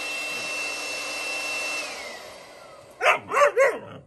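Leaf blower running with a steady high whine, then winding down, its whine falling about two seconds in. Then an Alaskan Malamute puppy barks three times in quick succession, loud and sharp.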